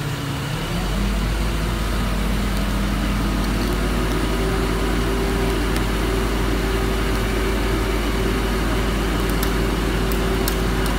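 Forklift engine running, revving up about a second in and settling at a higher, steady speed from about four seconds in.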